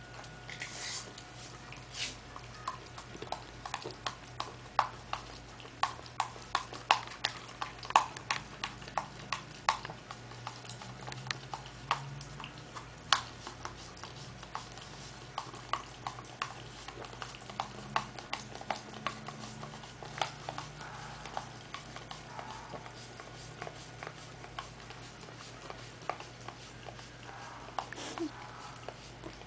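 Corgi puppy licking yogurt out of a plastic cup: quick wet tongue clicks and laps against the plastic, often two or three a second, on and off.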